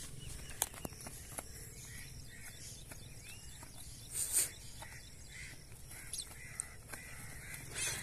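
Faint outdoor ambience with scattered bird calls and a few short clicks, the loudest being a brief noisy burst about four seconds in.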